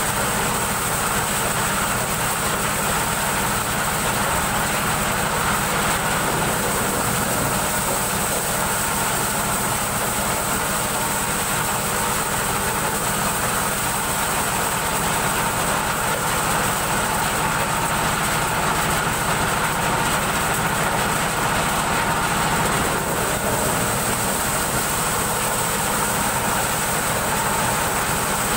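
Engine-driven corn sheller running steadily under load: a loud, even mechanical din from the engine and the threshing drum as cobs are fed in and shelled.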